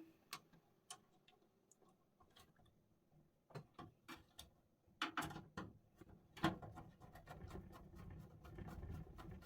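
Faint, irregular small clicks and ticks of a screwdriver turning the screws that hold a graphics card's bracket in a PC case. A low rumbling noise joins in about two-thirds of the way through.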